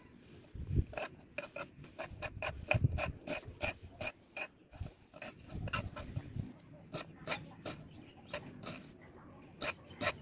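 A series of irregular sharp clicks and taps, about two or three a second, each with the same short ring.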